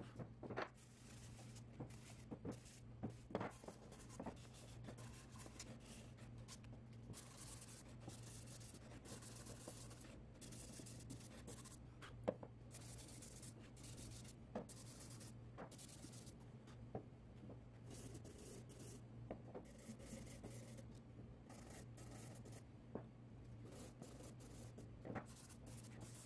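Sandpaper rubbed by hand along the edges of a wooden box, breaking its sharp corners: faint, irregular rasping strokes with occasional light knocks as the box is handled, over a steady low hum.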